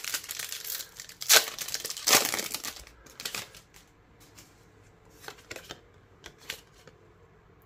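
Foil booster-pack wrapper crinkling and tearing open, loudest in two spells in the first three seconds. After that come a few faint clicks of trading cards being handled.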